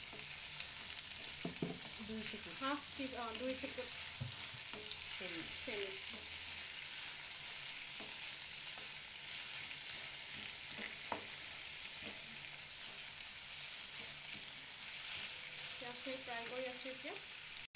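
Sliced onions frying in hot oil with a steady sizzle, stirred and scraped with a spatula, with occasional clicks. The onions are being fried with a pinch of sugar to caramelise them golden brown.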